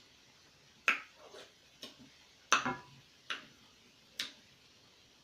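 Mouth and lip smacks while tasting a seafood tomato sauce: about six short, sharp clicks at uneven intervals, the loudest a little under a second in and about two and a half seconds in.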